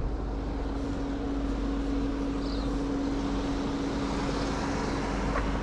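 A steady mechanical hum holding one pitch over a low rumble of outdoor street noise; the hum cuts off at the end.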